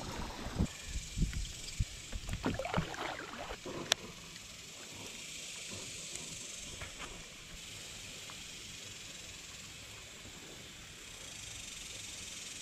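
Water sloshing and splashing from feet wading through a shallow creek for the first few seconds, with one sharp click about four seconds in, then a steady faint hiss of moving water and air.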